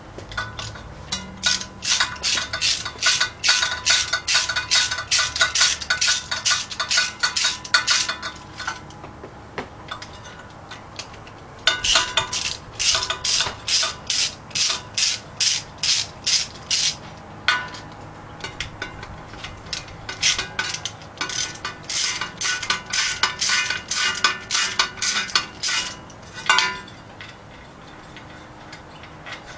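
Hand socket ratchet clicking rapidly as it backs out the water pump bolts on an engine block, in three long runs of ratcheting with short pauses between them.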